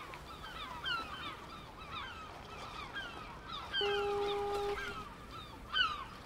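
A flock of birds calling over and over in many short, overlapping calls that fall in pitch, with a held steady tone lasting about a second a little after the middle.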